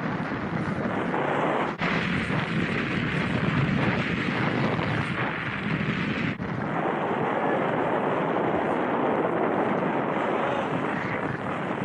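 Steady rush of wind over a moving skier's camera microphone, mixed with skis sliding through fresh powder snow. It cuts out for an instant twice, just under 2 s and about 6.5 s in.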